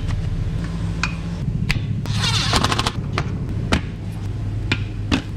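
Hand tools working on truck parts: scattered sharp clicks and knocks, with a quick run of clicks between two and three seconds in, over a steady low hum.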